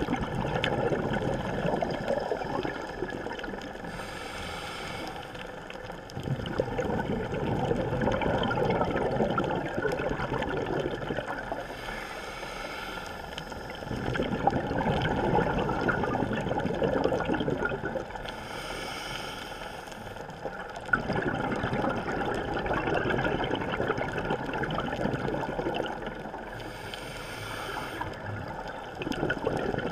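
Scuba diver breathing through a regulator underwater: bubbling exhalations of about four to five seconds alternate with shorter, quieter hissing inhalations, about four breaths in all.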